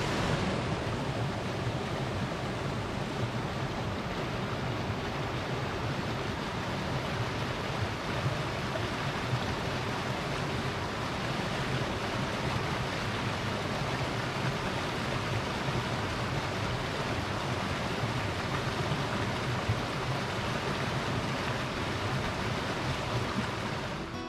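Mountain stream rushing steadily over rocks in small cascades.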